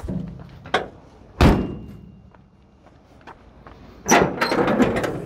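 Metal clunks and a heavy slam from the body of a 1973 International Loadstar truck as its engine compartment is opened, followed near the end by about a second of rattling and scraping.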